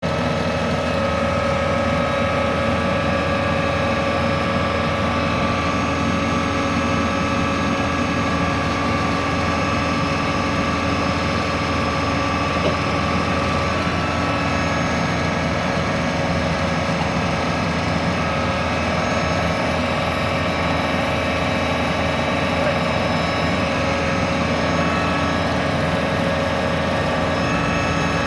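TMG 174 drill rig's engine and hydraulics running steadily, a low drone with a steady whine over it.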